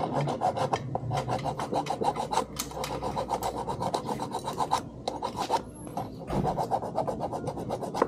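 Fast, even rasping strokes, several a second, like a hand tool worked back and forth against a hard part, with a brief pause about five and a half seconds in.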